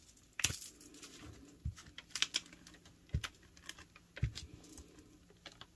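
Glue stick rubbed along the edge of a paper envelope, with the paper handled: a scatter of light scrapes, taps and clicks at an uneven pace.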